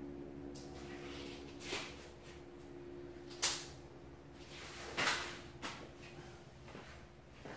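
A few short knocks and scrapes of things being handled, spaced a second or two apart, over a steady low hum.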